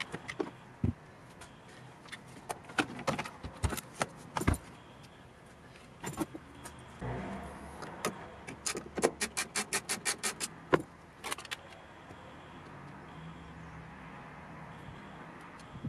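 Metal hand tools clinking and tapping on a car's boot fittings, with a quick, even run of about ten clicks about nine seconds in from a ratchet wrench turning a bolt, followed by a few single clicks.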